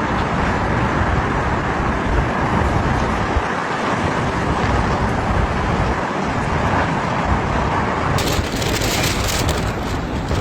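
Storm-force wind blowing hard and buffeting the microphone as a steady rushing roar with uneven low rumbling. About eight seconds in, the sound changes abruptly to a brighter hiss, as a different piece of footage begins.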